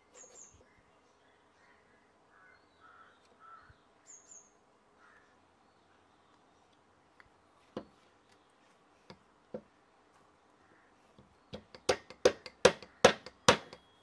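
A small DC motor and a plastic pulley knocking against a wooden tabletop as the pulley is pressed onto the motor shaft. There are a few single clicks, then a quick run of about seven loud, sharp knocks near the end. Faint high bird chirps come about half a second in and again about four seconds in.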